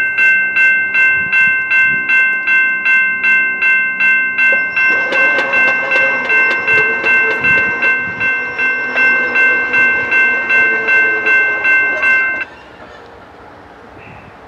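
Electronic railroad grade-crossing bell ringing at about three strikes a second, then stopping abruptly near the end. From about five seconds in, a distant train horn sounds underneath it.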